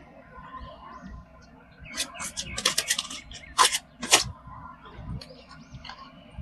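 Toy and packaging handling noises: a run of sharp crackles and rustles, thickest about two to four seconds in.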